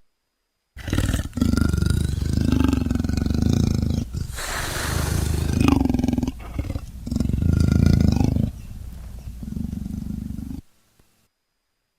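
Dinosaur roar sound effect made from layered lion roars and other creature roars: a run of long, deep roars and growls for about ten seconds, with short breaks between them, cutting off near the end.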